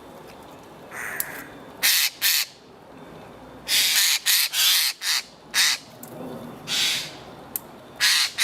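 Eurasian jay giving harsh, rasping screeches, about ten short calls, several in quick succession near the middle.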